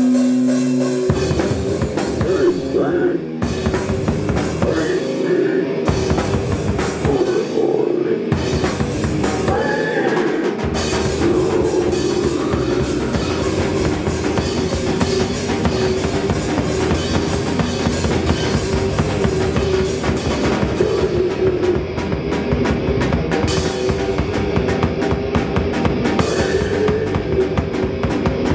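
Live rock band playing electric guitar, bass guitar and a drum kit. In the first ten seconds the low end cuts out briefly several times in stop-start breaks; then the full band plays on without a break.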